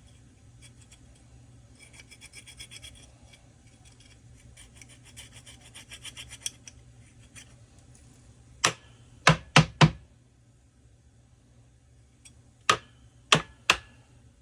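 Quick, even scraping or rubbing strokes, as of a hand tool worked back and forth over a part, in two short runs. Then sharp knocks: four close together, and three more a few seconds later.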